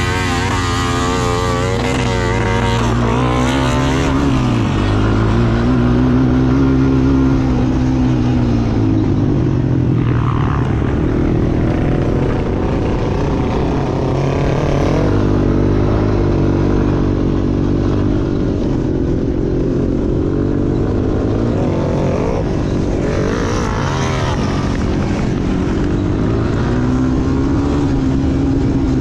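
Quad bike engine heard from on board, running under load, its pitch rising and falling over and over as the throttle is opened and eased off.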